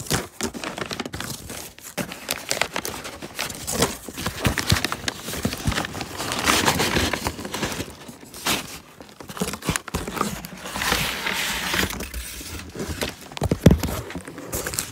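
A paper grocery bag and cardboard box being handled and pulled open by hand: continual crinkling and rustling of paper with crackles and knocks, denser and louder twice, about six and about eleven seconds in.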